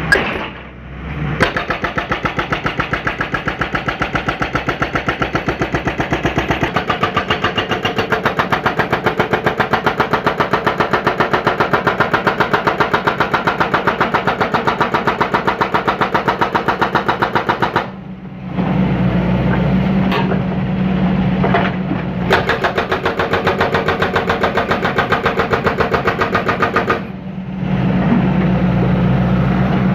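John Deere 160C excavator's diesel engine running, with a fast, even pulsing through much of it. The sound drops away briefly twice, and a steady low hum is stronger after each gap.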